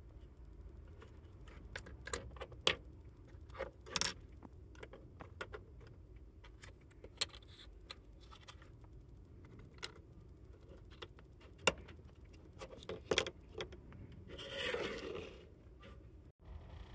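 Scattered light clicks, taps and scrapes of plastic Lexus remote key fob shells and a metal key blade being picked up and set down on a wooden workbench while a broken fob casing is swapped. A longer scraping rub comes near the end.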